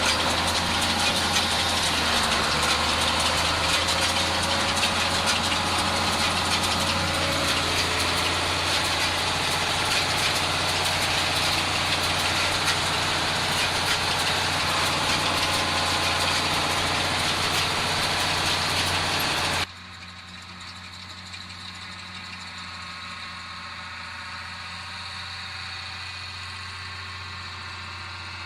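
IHC 1055 tractor's diesel engine running steadily. About 20 seconds in the sound drops suddenly to a much quieter, steady engine sound.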